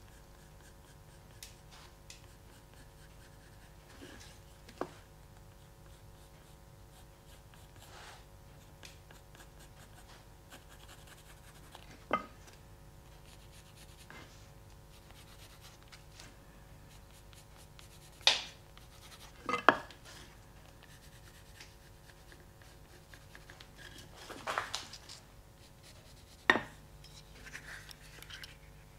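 Faint scratching of a pencil marking out a cherry-wood spoon, broken by a handful of short, sharp knocks and clatters of the wooden spoon and metal carving tools being handled and set down on a wooden chopping block, the loudest in the second half.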